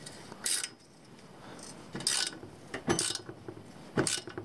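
Hand ratchet with an Allen bit tightening an Allen bolt: four or five short bursts of ratchet clicking, about one a second.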